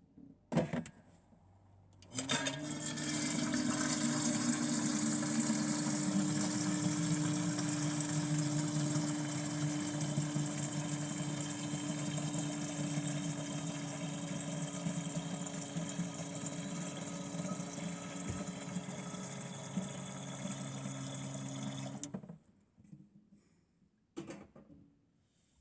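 A steady mechanical whirr from a small motor-driven machine, switched on about two seconds in and cut off abruptly near the end.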